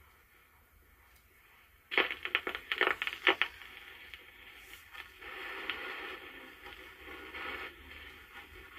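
Stylus of a 1970s AM/FM record player coming down on a vinyl LP: after a quiet start, loud crackles and pops through the unit's speaker about two seconds in, then a softer steady surface hiss from the lead-in groove.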